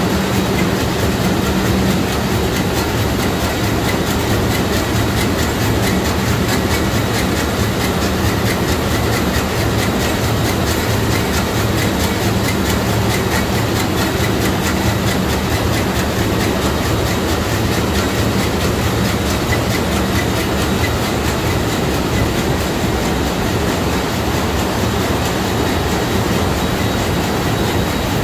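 Sulzer 6-62RTA two-stroke, six-cylinder main diesel engine of a container ship running at full speed: a loud, steady, fast mechanical clatter over a low drone.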